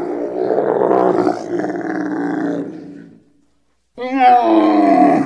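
Camels bellowing: a long rough, throaty grumble lasting about three seconds that fades away, then, after a brief pause, a higher moaning call with a slightly falling pitch starting about four seconds in.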